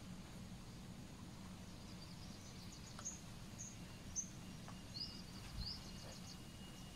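Quiet outdoor ambience: a low steady rumble and a faint thin steady high tone, with a handful of short high bird chirps, some rising, from about three to five seconds in, and a few faint clicks.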